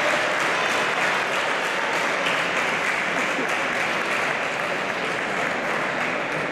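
Spectators applauding, a dense, steady patter of many hands clapping that eases slightly toward the end, with a few voices mixed in.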